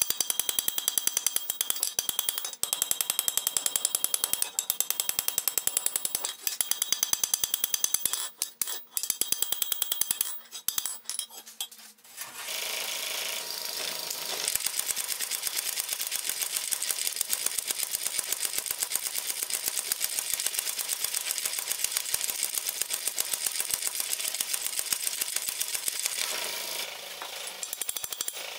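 Hand hammer striking a red-hot flat iron bar on an anvil in rapid ringing blows, drawing the bar out. About twelve seconds in, a mechanical power hammer takes over with a fast, steady pounding. Near the end, hand hammering on the anvil starts again.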